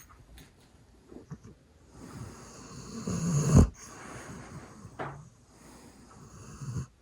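Snoring from a man and a hound dog napping together. One long, loud snore builds over about a second and a half and cuts off sharply in the middle; a short snore follows about a second later, and another builds near the end.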